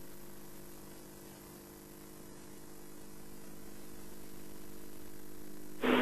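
Open safari vehicle's engine running steadily as it drives along a dirt track, a low hum that eases off briefly and then builds again. Near the end a sudden loud hiss cuts in.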